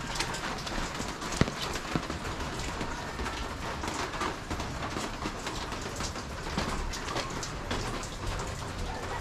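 Steady rain with many small, sharp drop taps, and irregular footsteps.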